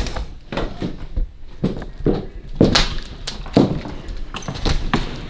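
Footsteps walking on a hard floor indoors, an uneven series of short scuffs and knocks about two to three a second.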